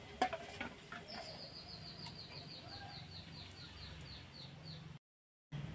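A bird calling in a rapid, even trill of short high chirps, about five a second, for nearly four seconds. A ladle clinks once against a steel bowl just after the start, and the sound cuts out briefly near the end.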